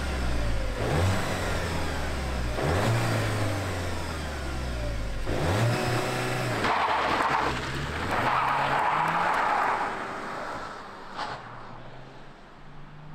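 Škoda Octavia RS engine and exhaust revving and accelerating in short edited snippets, the pitch rising several times. About halfway through comes a car pulling away with a hiss of tyre and road noise, fading quieter near the end.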